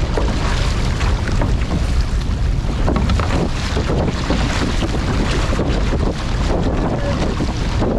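Steady wind noise on the microphone over water splashing and rushing along a six-man outrigger canoe as the crew paddles.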